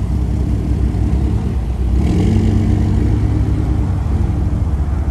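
Car engine running with a deep, steady rumble, growing a little louder and higher about two seconds in.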